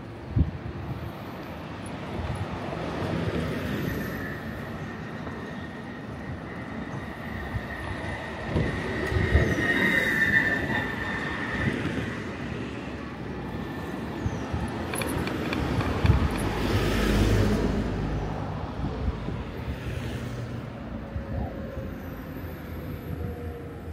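Street traffic heard from a moving bicycle: a steady wash of passing vehicles, with a high-pitched squeal held for several seconds in the first half and a louder rush of a vehicle passing close about two-thirds of the way in.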